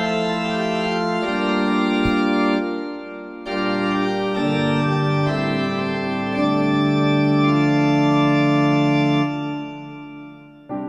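Slow organ music with long held chords, dipping briefly about three seconds in and fading out near the end.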